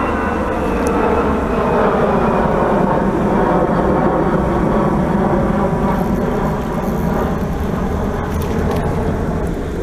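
Jet airliner passing low overhead, its loud engine noise steady, with several tones sliding slowly downward as it goes by.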